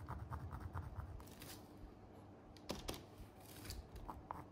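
Faint scratching of a black pencil tip on canvas in a few short, irregular strokes, over a low steady hum.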